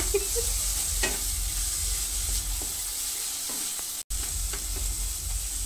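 Onion and spice masala sizzling in oil in a nonstick kadai while a spatula stirs and scrapes it around the pan, a steady sizzle with a few scraping strokes. The sound cuts out for an instant about four seconds in.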